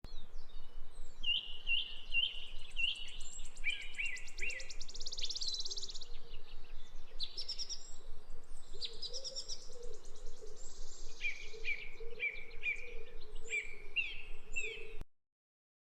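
Sparrows chirping: quick runs of short repeated chirps, with a rapid buzzy trill between about three and six seconds in. The sound cuts off abruptly near the end.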